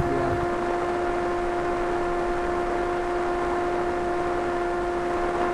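Steady radio hiss with a constant hum at one fixed pitch and a fainter overtone above it: the FPV video receiver's audio downlink from the long-range flying wing, described as having "a little crackle" as the signal weakens.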